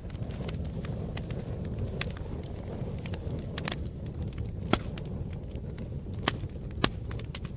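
Campfire crackling: scattered sharp pops and snaps over a steady low rush, with three louder pops in the second half.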